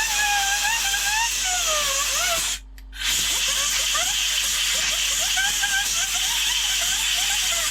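A jet of compressed air hissing into a VFD's small cooling fan, which spins with a wavering whine. The air stops briefly about two and a half seconds in, starts again, and cuts off at the end.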